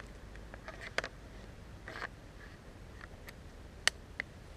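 A few sharp plastic clicks from handling an airsoft pistol: one about a second in, the loudest near the end, quickly followed by a smaller one. Short rustles of dry leaves in between.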